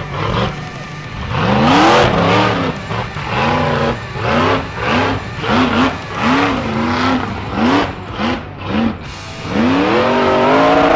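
Rock bouncer engine revving hard in quick bursts, its pitch swooping up and falling back a little more than once a second, then a longer climb in revs near the end.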